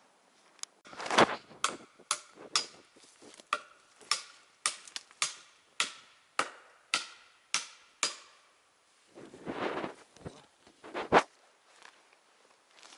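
A hand tool striking wood in a steady series of sharp blows, about two a second for some seven seconds, then a short scuffling rustle and one final, louder blow.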